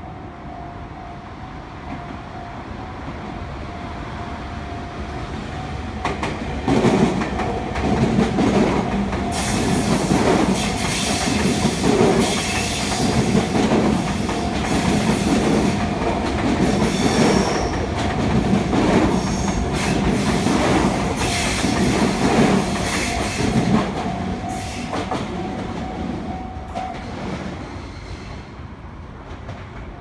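Sotetsu 9000 series electric train passing over a level crossing. It grows louder as it approaches, its wheels clack over the rail joints in a steady beat of about one stroke a second for some twenty seconds, and then it fades away. Under it the crossing warning bell rings, stopping a few seconds before the end.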